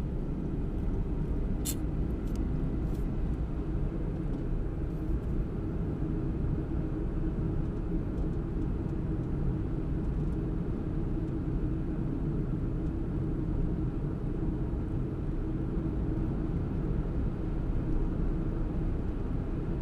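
Car interior noise picked up by a windscreen-mounted dashcam: a steady low rumble of engine and tyres on the road while driving at around 35 to 50 km/h. A few faint clicks come about two seconds in.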